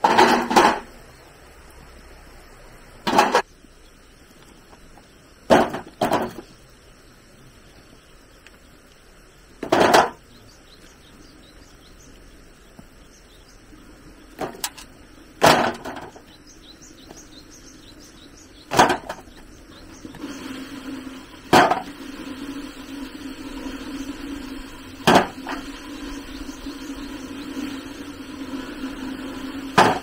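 A series of heavy knocks, one every two to four seconds, about ten in all. From about two-thirds of the way through, a steady low hum runs underneath.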